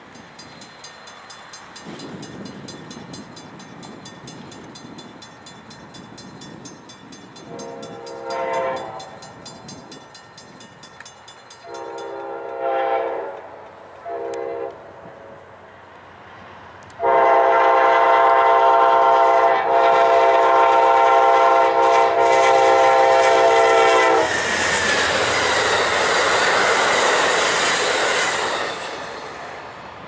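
Railroad crossing bell ringing while an approaching diesel locomotive sounds its air horn in the grade-crossing pattern: two long blasts, a short one, then a final long blast held about seven seconds, the loudest sound. The locomotive then passes close by, engine and wheels on the rails loud, fading near the end.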